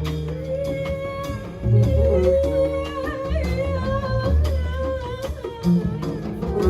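Live jazz band playing: a long, wavering melody note held over walking double bass, with drum and cymbal strikes.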